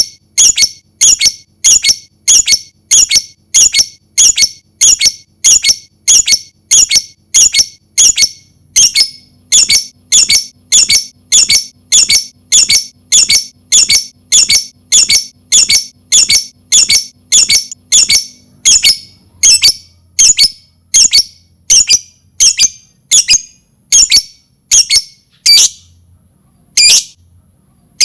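Lovebird calling in a long run of short, sharp, high-pitched chirps, evenly repeated about twice a second. The chirps space out after about twenty seconds, with a brief pause near the end.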